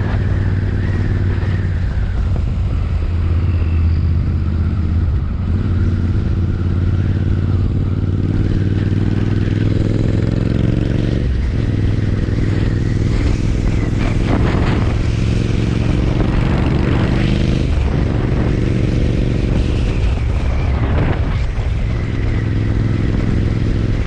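Royal Enfield Interceptor 650's 648 cc parallel-twin engine running loud through its exhaust while riding. The engine note climbs under throttle and drops abruptly a few times, as the rider shifts up.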